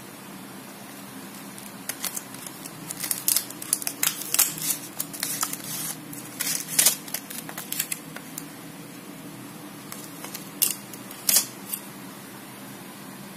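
Crinkling and clicking of a thin clear plastic tray of watercolour paint tubes as it is slid out of its cardboard box and handled, in quick irregular bursts, with two more sharp crackles near the end as a tube is pulled from the tray. A steady low hum runs underneath.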